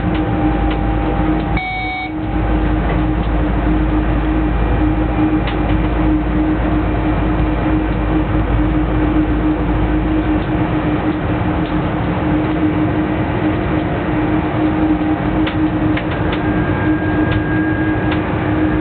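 Steady running noise inside the cab of a Siemens Taurus electric locomotive travelling along the line, with a constant electric hum and a few clicks from the wheels on the rails. There is a short dip with a brief high beep about two seconds in.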